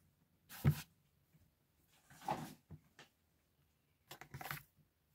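A few short, soft knocks and rustles: the loudest knock under a second in, a longer rustle a little after two seconds, and a few light clicks near the end.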